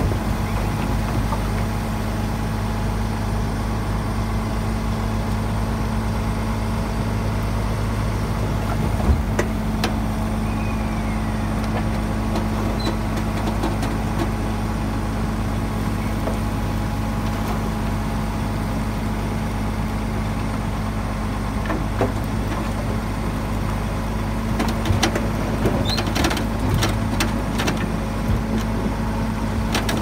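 Heavy diesel engine of earthmoving machinery running at a steady speed, with a single knock about nine seconds in and a few sharp clicks and knocks near the end.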